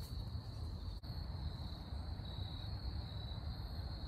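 Insects in an evening chorus, a steady high trill that does not let up, over a constant low rumble.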